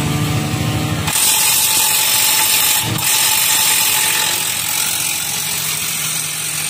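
Wrench working on the blade-mounting bolts of a Shaktiman rotavator during a blade change: a steady mechanical noise that starts suddenly about a second in, after a low hum.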